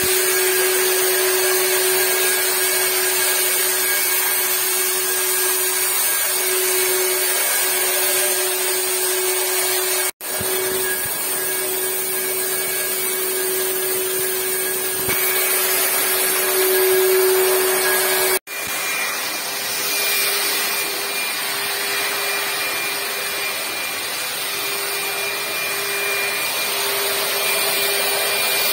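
Handheld electric disinfectant fogger running steadily: a loud blower motor with a constant hum and hiss. The sound breaks off for an instant twice.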